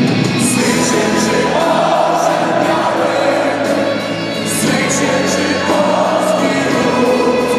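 A stadium crowd of football fans singing a chant together: a dense mass of voices holding a sustained tune, with scattered sharp clicks.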